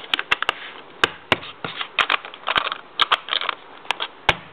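A Lego padlock being shaken, its plastic bricks and parts rattling and clicking irregularly. The shake is a test that the lock cannot be jolted open.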